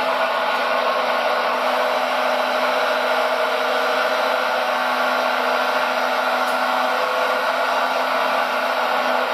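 Steady electric whine of an RC model's hydraulic pump running, several even tones over a hiss that holds constant without a break.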